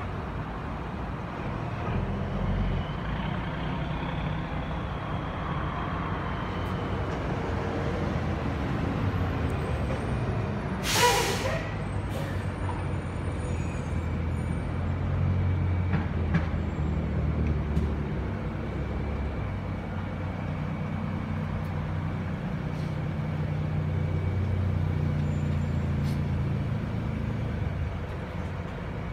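Steady low rumble of vehicle engines, with one sharp hiss of a dump truck's air brakes about eleven seconds in.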